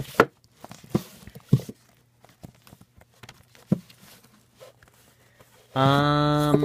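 Cardboard LP sleeves being flipped and pushed through a wooden record bin by hand, giving scattered light knocks and sliding rustles. Near the end a person's voice gives a drawn-out hesitation sound held on one steady pitch for under a second, the loudest sound here.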